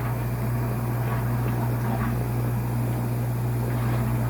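A Whirlpool dishwasher running just after being started on its pots-and-pans cycle: a steady low hum from the machine with an even rushing noise over it.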